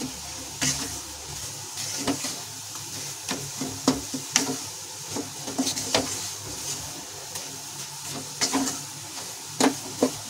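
A spatula stirring wheat flour roasting in hot ghee in a metal kadhai: irregular scrapes and knocks against the pan, about one or two a second, over a soft steady sizzle.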